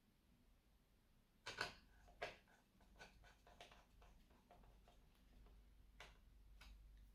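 Faint, scattered clicks and taps of small laptop parts being handled: two sharper clicks about a second and a half in, a run of light ticks after them, and one more click near the end.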